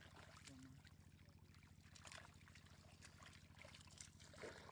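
Faint water splashing and trickling in short, scattered bursts over a steady low hum.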